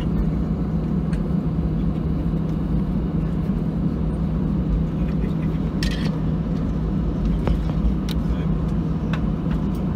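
Cabin noise of an Airbus A319 taxiing, heard from a seat over the wing: its two CFM56 engines run steadily as a constant hum over a low rumble.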